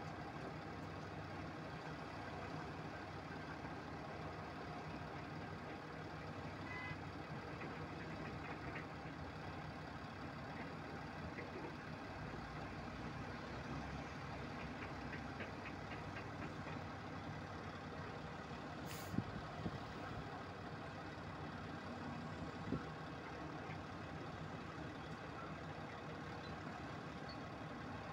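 Heavy diesel earthmoving machinery idling steadily, with a sharp click about two-thirds of the way through and a smaller knock a few seconds later.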